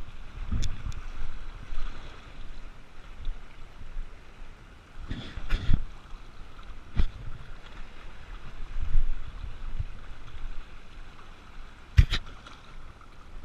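Small sea waves washing in and splashing among shore rocks, rising and falling in surges, with a few sharp knocks, the clearest about twelve seconds in.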